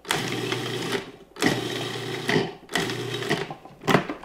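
Food processor pulsed three times, the motor running about a second, a second and half a second with short stops between, its blade chopping cilantro, garlic and lemon juice into an herb sauce. A short sharp clack comes near the end.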